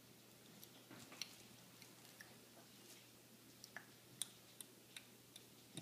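Near silence: room tone with a few faint, scattered small clicks and taps, the sharpest about a second in and about four seconds in.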